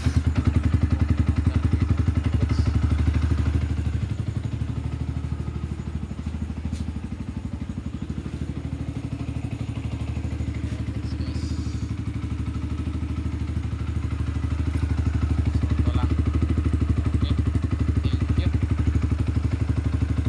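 Yamaha R15 V2's single-cylinder four-stroke engine idling steadily just after starting, a little quieter in the middle stretch. It runs once the faulty starter relay is dealt with.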